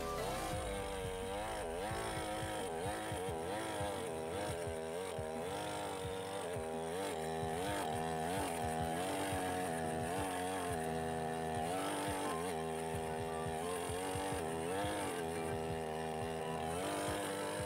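Two-stroke petrol chainsaw running at high revs while its bar is plunged into the end grain of a log. The engine pitch rises and falls every second or so as the chain bogs in the wood and frees again.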